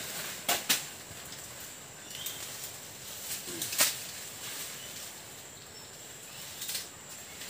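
Dry banana leaves and undergrowth rustling and crackling as someone pushes through them. Three sharp snaps stand out: two close together about half a second in and one just under four seconds in.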